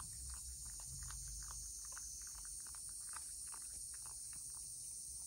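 A cat licking a Churu paste treat from a bowl: quick, wet lapping at about three licks a second.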